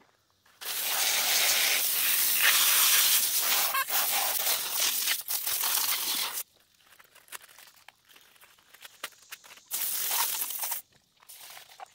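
Garden hose spray nozzle jetting water onto a deer skull and a stone slab: a loud, steady hiss for about six seconds, then quieter spattering and dripping, then a second short burst of spray about ten seconds in.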